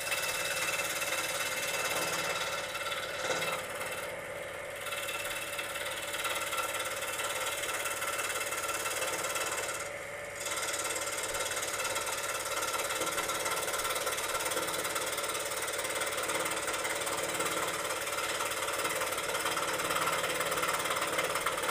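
RBI Hawk 226 scroll saw running steadily, its reciprocating blade cutting through wood. The sound dips briefly about ten seconds in.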